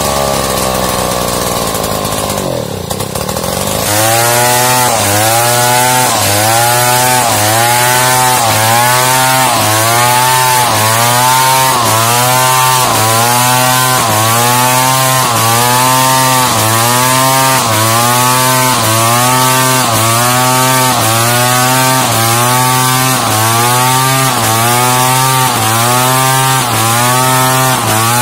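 Large two-stroke chainsaw ripping a plank lengthwise from a squared log. Its revs sink over the first few seconds. About four seconds in it goes back to full throttle and cuts steadily, the engine note rising and falling in an even rhythm a little over once a second.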